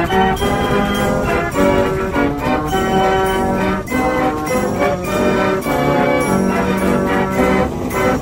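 Music: a brass-style tune with bell tones and notes changing in a steady rhythm.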